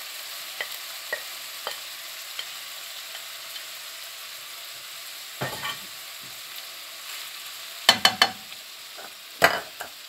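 Minced pork and chopped vegetables sizzling steadily in a hot wok while a slotted spatula scrapes and stirs, with light taps early on giving way to a few louder knocks of the spatula against the pan about halfway and near the end.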